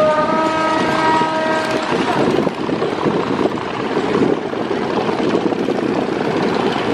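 A river passenger launch's horn sounds one blast about two seconds long, over a steady rushing noise of bow wash and engines that continues after it.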